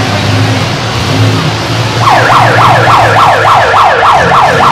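Derby car engines running in the arena, then about two seconds in a siren starts and goes on as fast, repeating falling sweeps, about four a second, which cut off abruptly near the end.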